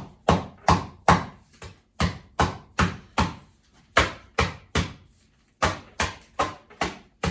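Dry instant noodles in a plastic bag being pounded to crush them: a run of sharp cracking blows, about two or three a second, with a short pause about two-thirds of the way through.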